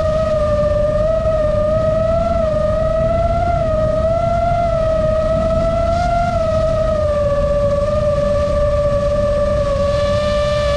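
FPV drone's motors and propellers whining in one steady tone that wavers slightly in pitch with the throttle, over a low rushing noise. Near the end the whine gains a brighter edge.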